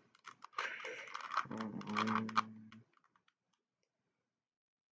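3x3 Rubik's cube being turned: rapid plastic clicking and rattling of the layers for about three seconds, with a low steady hum partway through, then it stops.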